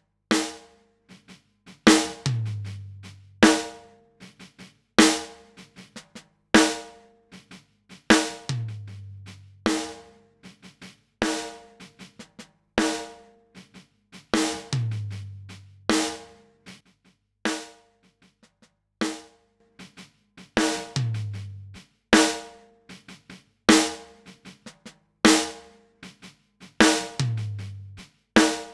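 A slow drum-kit loop, mostly snare hits that ring briefly about every second and a half, with a deep kick boom about every six seconds. It plays through a Great River PWM-501 500-series compressor whose controls are being turned, so the loop is heard as a compressor demo.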